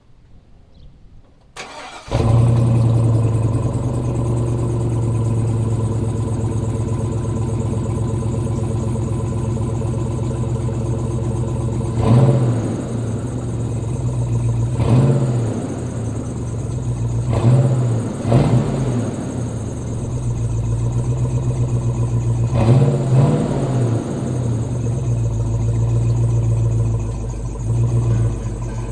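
Hummer H2's big V8 engine cranking briefly and starting about two seconds in, then idling steadily, with several short throttle blips over the middle of the stretch.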